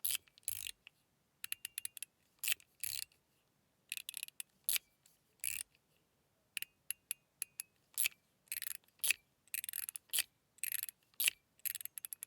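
Stainless-steel mechanical fidget slider (Gao Studios Candy Rich Coin V2) being slid back and forth by hand: sharp metal clicks and short scraping slides at an uneven pace, some with a brief high ring.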